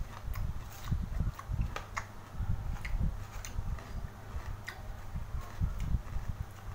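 Close-up sounds of a person eating from a bowl held at the mouth: scattered short mouth clicks and smacks over an uneven low rumble.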